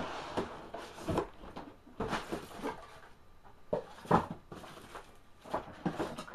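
Handling and unpacking noise as an airsoft rifle is lifted out of its box: irregular rustles of packaging with scattered knocks and clunks.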